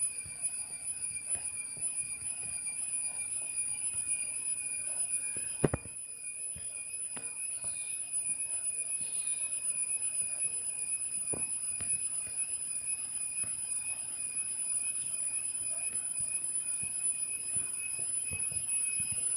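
A continuous, steady high-pitched whine, holding one pitch with a slight waver, with a sharp click about six seconds in and a fainter one near eleven seconds.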